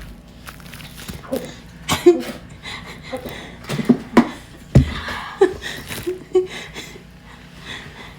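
A string of short, loud burps, several in a row, the loudest about two seconds in and again around four to five seconds in.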